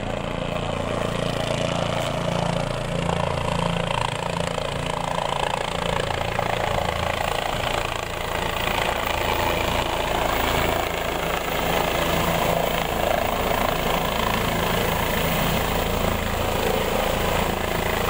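Helicopter coming in to land and then sitting on the pad with its turbine engine and rotor running steadily.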